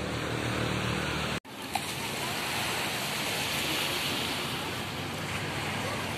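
Small waves washing up a sandy beach, a steady rush of surf. A low hum lies under it for the first second or so, and the sound drops out for an instant at a cut.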